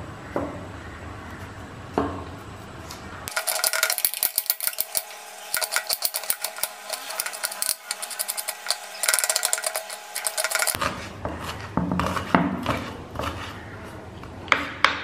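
Kitchen knife chopping a red onion on a wooden cutting board: a few single knocks, then rapid chopping strokes for about seven seconds, then slower scattered knocks.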